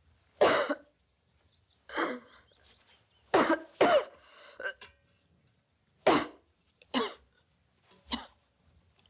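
A woman coughing: about eight separate short coughs spaced through the stretch, two of them in a quick pair near the middle.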